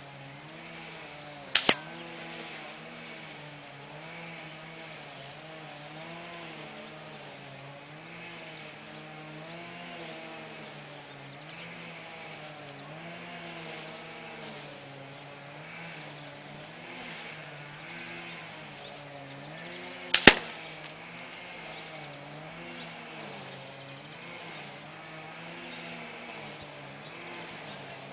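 Two shots from a Diana 75 spring-piston air rifle, about 19 seconds apart, each a short sharp double crack. Under them a low droning hum wavers slowly in pitch throughout.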